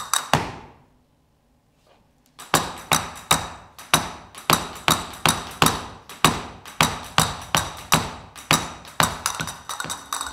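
Flamenco castanets clacking in a steady rhythm, each stroke a sharp, bright click. The playing breaks off about half a second in, leaving a pause of about two seconds, then resumes at roughly three clacks a second.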